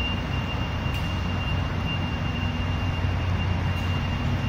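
Truck towing the horse trailer driving slowly: a steady engine rumble and road noise, with a thin steady high-pitched tone over it.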